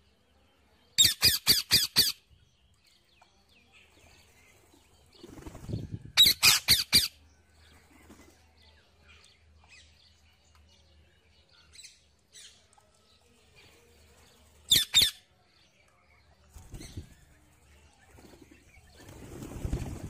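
Wild parakeets giving harsh, shrill screeches in quick runs: about six in a row a second in, about five more around six seconds in, and a quick pair near fifteen seconds. A faint low rumble comes before the second run and again near the end.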